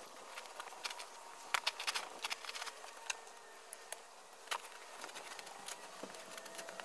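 Hand digging in soil: a trowel scraping dirt, then a spade chopping into the ground, heard as irregular sharp scrapes and clicks, the loudest about one and a half and four and a half seconds in.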